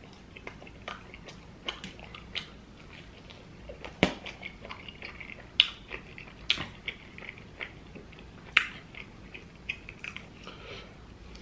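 Close-miked chewing of a mouthful of pizza, with wet lip smacks and several louder sharp smacks.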